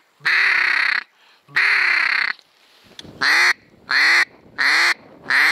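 Loud, close duck quacking in the hen-mallard pattern: two long drawn-out quacks, then a run of shorter quacks about one every two-thirds of a second.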